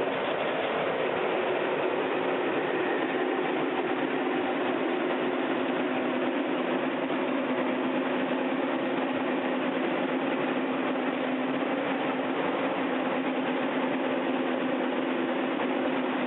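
Skid steer engine running steadily at working speed, driving a hydraulic articulating brush cutter attachment, with an even mechanical hum that does not change.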